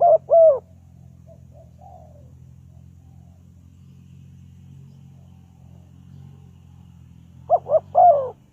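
Spotted dove cooing: two coos at the start, then after a long pause a three-note coo phrase near the end, with a few faint softer notes about a second in. A steady low hum runs underneath and stops just before the end.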